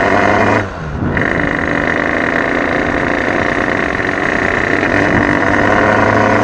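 Engine of an 88cc DRD pit bike running under throttle while riding, steady and loud; the note drops briefly just over half a second in, then picks back up and pulls steadily again.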